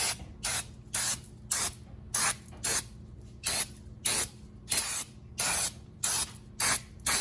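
Aerosol can of brake cleaner sprayed in short repeated bursts, about two a second, a dozen hissing blasts in all, cleaning the back face of a freshly machined brake rotor.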